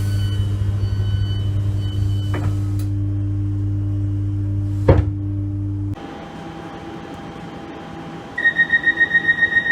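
Passenger train doors closing: a steady low hum with a click and then a short thump about five seconds in as a door shuts. Near the end a door-warning alarm starts beeping rapidly, about five high beeps a second.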